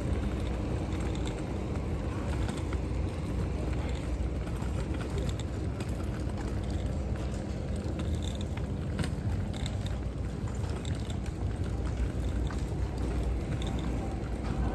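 Folding wagon's wheels rolling along a concrete sidewalk: a steady rumble with faint rattling ticks.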